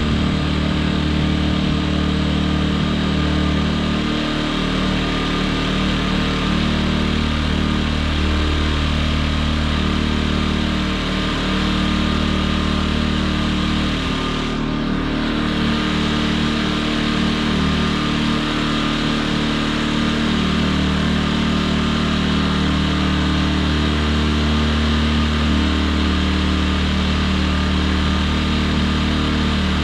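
Champion inverter generators running steadily with their fuel valves shut off, burning the last fuel in the carburetors before stalling, to run them dry for storage. The engines keep running without stopping, with a brief dip about halfway through.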